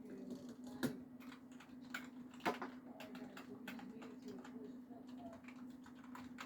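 Typing on a Langtu membrane gaming keyboard modded with baby-oil lube and tissue-paper damping, heard from a distance: faint, soft, irregular key clicks, with a couple of louder presses about one and two and a half seconds in, over a steady low hum.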